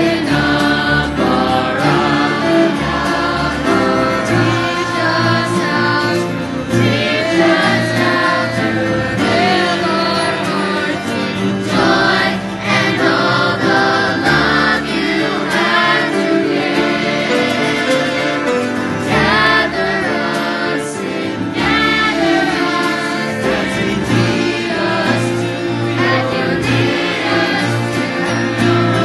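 Voices singing a Jewish worship song together, accompanied by acoustic guitar.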